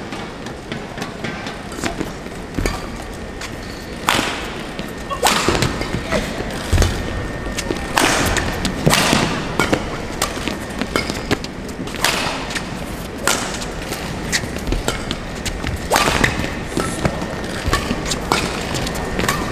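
Badminton rally: rackets striking the shuttlecock in a series of sharp hits at uneven spacing, over steady arena background noise.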